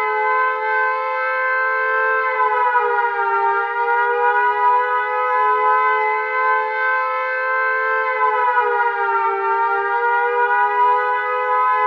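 Tornado warning siren sound effect: a loud, steady two-tone siren chord. It sags slightly in pitch and comes back up twice, about six seconds apart.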